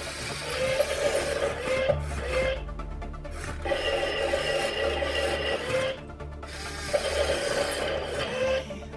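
Remote-control AT-AT walker toy's electric motor and plastic gears driving its legs, a rasping whir with a pitch that rises just before it stops. It halts briefly twice and starts again.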